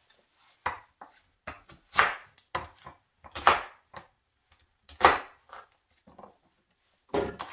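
Chef's knife chopping an onion on a wooden cutting board: about a dozen separate knocks of the blade on the board at uneven intervals, the three strongest near the middle.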